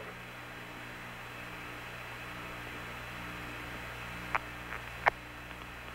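Steady hum and hiss of the Apollo air-to-ground radio link with no one talking, with a low tone pulsing on and off about once a second. Two short clicks come about four and five seconds in.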